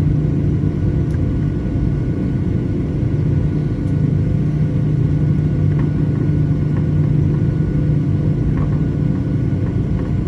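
Boeing 737-900ER's CFM56-7B jet engines running steadily: an even low rumble with a constant hum.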